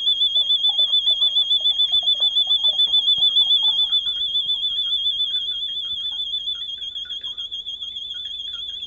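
Alarm siren of a smoke-detector-triggered fire alarm circuit going off: one steady, high warbling tone that wobbles rapidly up and down in pitch, set off by the detector's test button. It grows somewhat quieter after about four seconds.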